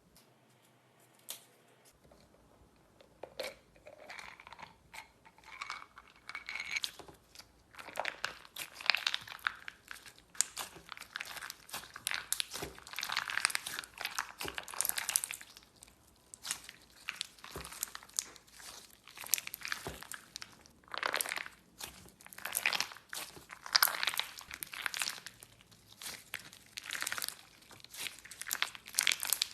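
Knife cutting through dry, brittle soap: a run of crunchy, crackling scrapes and crumbles, one stroke after another, starting faint and getting louder after the first few seconds.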